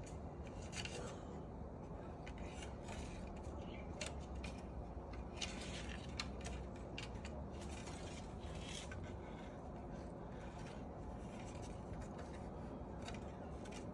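Irregular quick scratchy rustles and a few light clicks as a cat bats and claws at a dangling play string.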